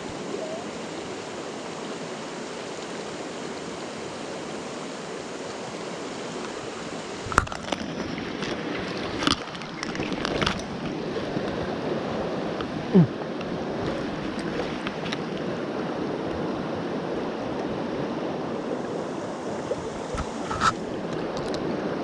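Mountain stream running steadily over rocks, with a few short knocks and small splashes from about seven seconds in as a fish is handled in the shallows.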